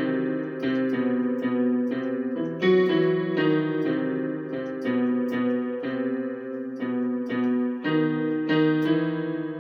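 Electronic keyboard playing a slow original piece: a melody of single struck notes over held chords that change every second or so, with the last notes left to ring and fade near the end.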